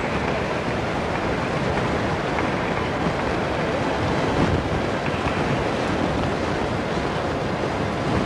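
Steady, even background murmur of an arena crowd, with no distinct events, picked up by a camcorder's built-in microphone.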